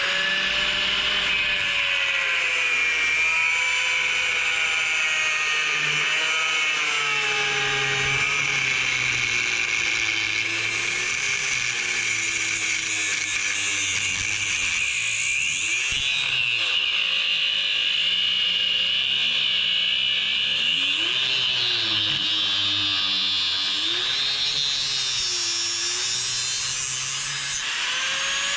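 Corded mains angle grinder with a cutting disc cutting through the shackle of a Litelok X1 D-lock. It makes a steady high whine with a grinding hiss, and its pitch dips and recovers again and again as the disc bites into the shackle.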